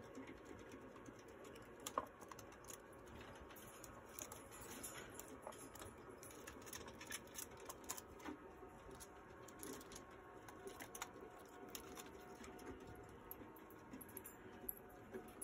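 Faint, scattered tapping and clicking of sugar gliders scrambling over cage ledges, hanging toys and wire, with one sharper click about two seconds in. A faint steady hum runs underneath.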